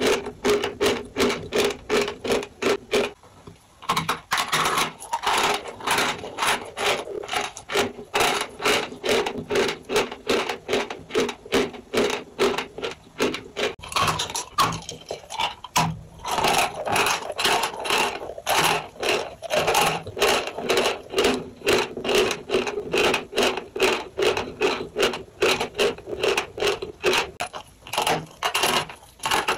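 Close-up chewing of a dry chalk block: crisp crunches at about three a second as the chalk is bitten off and ground between the teeth, with a short pause about three seconds in.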